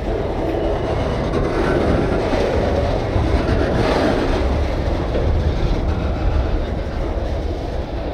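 Freight train of loaded lumber flatcars rolling past close by: a steady rumble of steel wheels on the rails, swelling slightly about halfway through.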